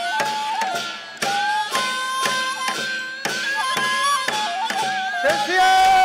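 Korean shamanic gut music: a wavering, pitch-bending melody on a traditional melody instrument over drum strokes about twice a second. About five seconds in, a woman's voice comes in with a long held sung note.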